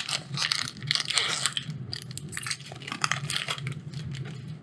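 Foil wrapper of a Magic: The Gathering booster pack crinkling and crackling in the hands as the pack is opened and the cards are drawn out, with many irregular small crackles and clicks.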